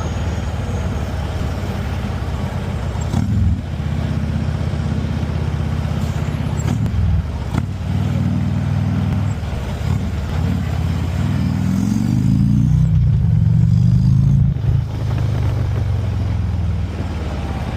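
Harley-Davidson V-twin motorcycle engine rumbling as it rides, its revs rising and falling several times. The loudest stretch is a rev that climbs and then drops back about twelve to fourteen seconds in.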